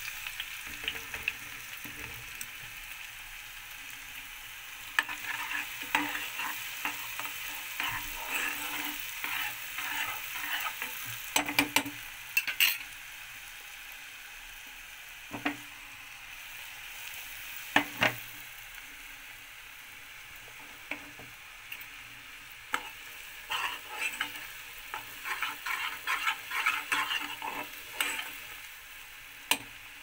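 Ground ginger and black pepper frying in ghee in a steel saucepan: a steady sizzle, with sharp clinks of stirring against the pan coming in clusters every few seconds.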